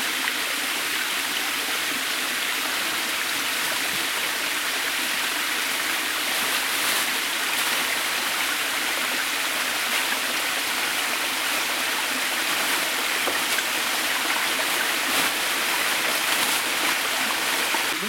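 Mountain river rushing over small waterfalls: a steady, unbroken rush of water.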